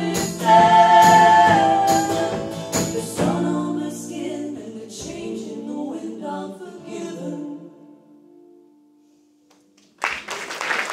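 Live folk-rock ending: voices singing a held note in two-part harmony over percussive strokes, then the final chord rings out and fades almost to silence. Audience applause breaks out near the end.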